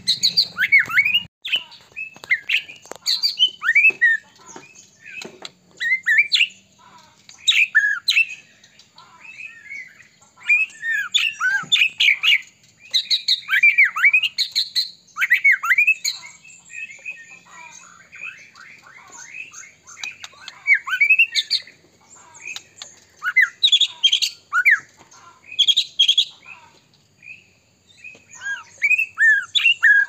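White-rumped shama (murai batu) in full song: bursts of rapid, varied whistled phrases with quick downward-sweeping notes, broken by short pauses of a second or two.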